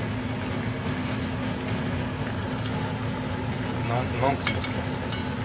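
Oil frying with a steady sizzle over a steady low hum. A brief murmur of voice and a sharp click come about four seconds in.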